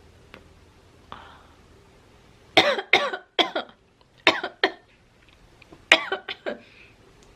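A woman coughing from inhaled cigarette smoke, a smoker's cough. It comes in several short fits of two or three harsh coughs each, starting about two and a half seconds in.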